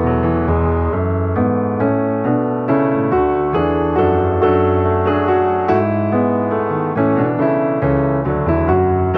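Background piano music, a steady flow of notes in a gentle melody.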